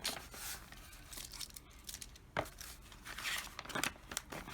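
Paper rustling and crinkling in scattered bursts, with a few light taps: the paper pages of a handmade book being handled and turned.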